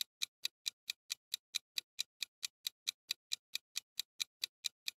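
Countdown-timer ticking sound effect: sharp clock-like ticks, about four and a half a second, marking the time left to answer a quiz question.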